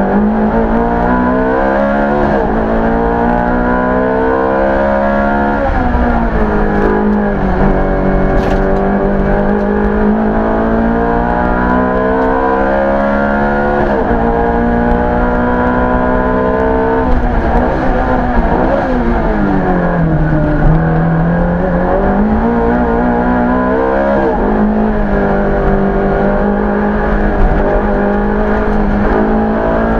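Ferrari F430 GT3's V8 racing engine heard from inside the cockpit under hard acceleration. Its pitch climbs through each gear and drops at each shift, and about twenty seconds in it falls away as the car slows for a bend before climbing again.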